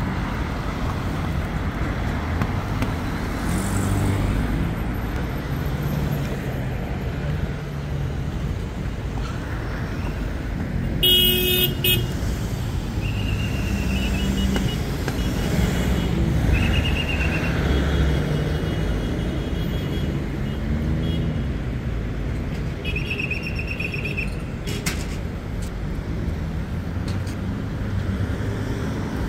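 City road traffic running steadily past, engines and tyres, with car horns tooting several times. The loudest toot comes about 11 seconds in, and shorter ones follow a few seconds later and again near 23 seconds.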